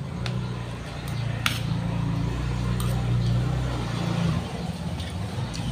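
A steady low hum with a few light clicks of a spoon against a plate, the clearest about a second and a half in.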